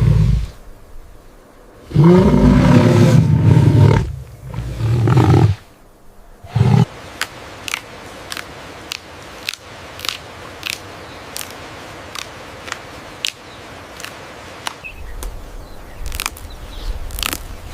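A large animal roaring: one long low roar that falls in pitch, a shorter second roar and a brief third. Then a steady run of sharp clicks, about one and a half a second.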